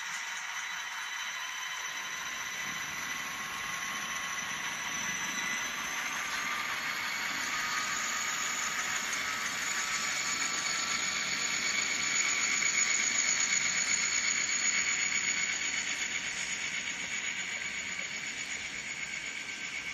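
N scale Bachmann Dash 8-40CW model diesel locomotives running with DCC sound: a thin, high diesel engine sound from the tiny onboard speaker, mixed with the rolling noise of the freight cars on track. It is a steady sound of several held high tones that grows louder as the train passes, peaks about two-thirds of the way in, then eases off.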